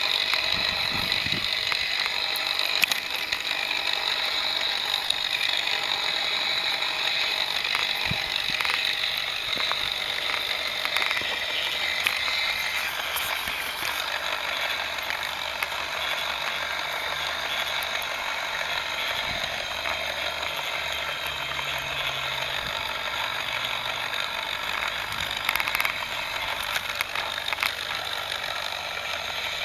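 Lego Technic 4x4 model's electric motor and plastic gear train whirring steadily, with scattered clicks, as it drives over stony ground.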